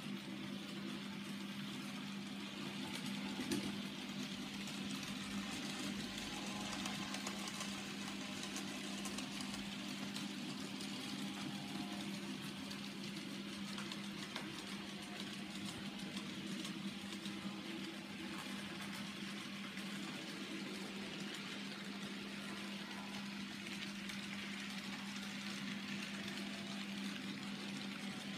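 Graham Farish N gauge model diesel locomotives running on the layout's track: a steady motor hum and whir with the light rumble of small wheels on the rails.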